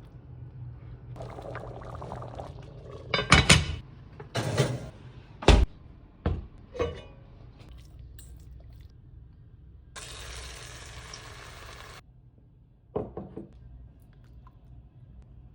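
Kitchen cookware sounds: a run of sharp knocks and clatters of pots, pans and utensils, and a steady rush of liquid for about two seconds.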